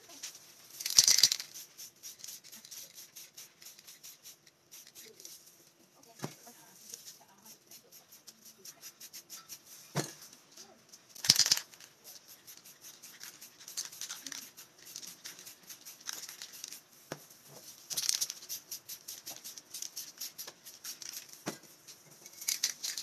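Aerosol spray-paint can hissing in several short bursts as paint is sprayed, with fast rattling ticks in between, like the mixing ball in the can being shaken.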